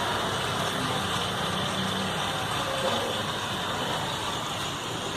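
Steady engine and road traffic noise, an even hum and hiss with no distinct events.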